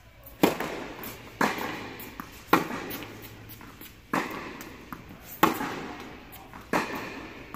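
Tennis rally: a tennis ball struck by rackets and bouncing on the hard court, six sharp pops a little over a second apart. Each pop echoes in the indoor tennis hall.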